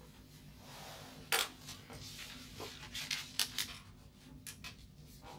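Dry-erase marker strokes on a whiteboard as a curve and lines are drawn: a run of short scratchy strokes, the loudest about a second and a half in and several more close together around the middle.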